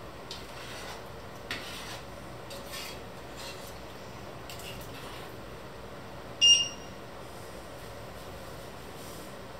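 Metal spoon stirring a thick mixture in an enamelled pan, with soft scraping strokes, then one sharp, ringing clink of the spoon against the pan about six and a half seconds in.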